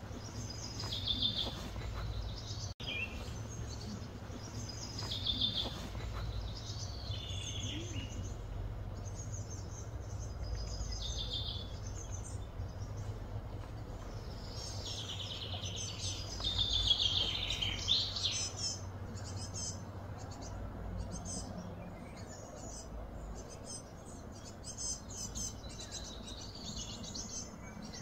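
Birds calling outdoors: a short falling call repeated every few seconds, then a louder, busier stretch of song about halfway through, and quick repeated chirps toward the end, over a steady low hum of background noise.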